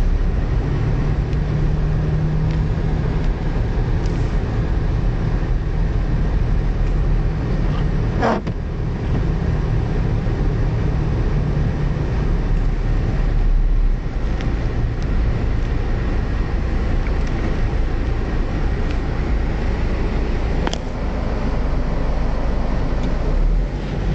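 Car driving along, a steady rumble of engine and road noise. There is a short squeak about eight seconds in and a brief click later on.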